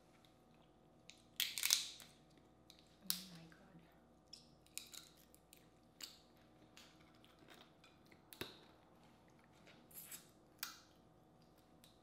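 Boiled crawfish shells cracking and crackling as they are peeled apart by hand, with chewing of the meat. Sharp, irregular crackles come every second or two, the loudest about a second and a half in.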